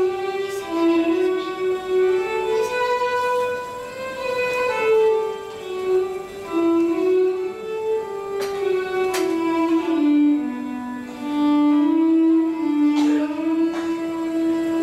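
Solo violin playing a slow melody that steps and slides between notes, settling on a long held note near the end. A few sharp taps sound over it.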